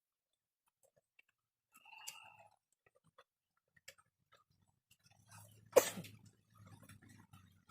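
Hand-carving hardwood with chisels: sparse small clicks and scrapes of the blade cutting, with one sharp knock about six seconds in and a brief squeak about two seconds in.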